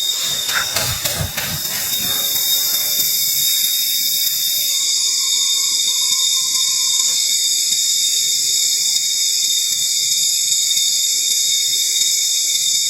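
Steady, loud, high-pitched buzzing of an insect chorus, unchanging throughout. A few short knocks fall between about half a second and two seconds in.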